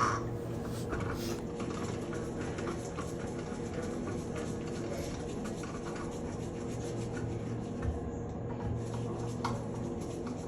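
Shower valve trim being refitted by hand: light rubbing and scraping of the trim and screws against the valve, with scattered small ticks, over a steady low hum.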